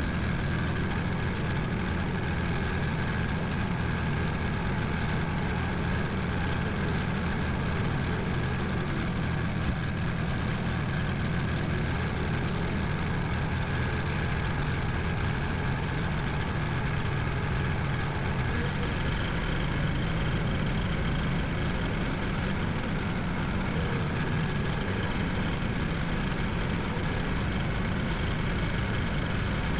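Kubota tractor's diesel engine running at a steady, even pace while the tractor is driven.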